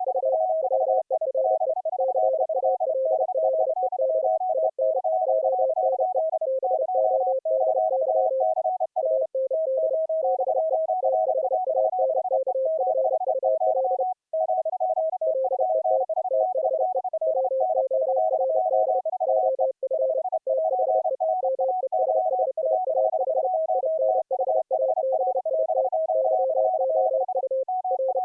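Morse code (CW) audio tones from several operators keying at the same time, three pitches close together that overlap and interleave in rapid dots and dashes. The signals come through an Opus-coded audio-over-IP link, mixed and relayed by a Raspberry Pi 4 RTSP server.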